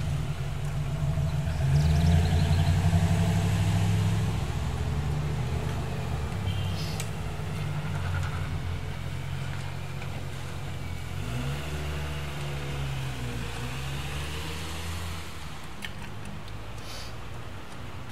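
Motor vehicle engine running, loudest about two to four seconds in, its pitch dipping and rising again past the middle. A few light clicks near the end.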